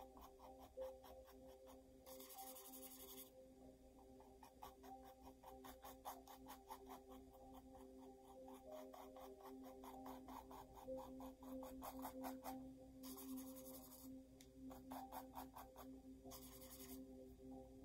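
Small paintbrush dabbing and scraping paint onto a stretched canvas: a quick run of dry taps and scratchy strokes, with three short louder scrubbing hisses. Faint sustained ambient music plays underneath.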